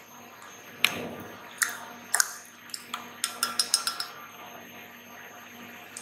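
Glassware clinking as a glass dropper is knocked against a glass beaker of water and test tubes: a few single clinks, then a quick run of light clinks.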